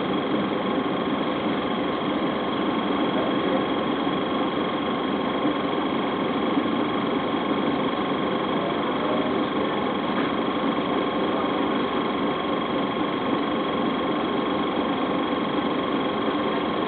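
Inside a New Flyer D40LF transit bus: its Detroit Diesel Series 50 four-cylinder diesel running steadily through the Allison B400R transmission, a constant drone with a faint steady whine over it.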